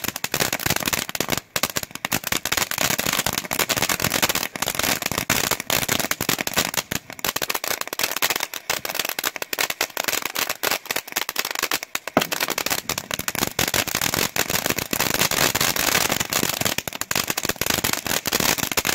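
Small Black Cat ground fountain (the silver-stars tube of a Color Medley three-pack) burning as it sprays sparks. It makes a continuous hiss thick with sharp crackling pops.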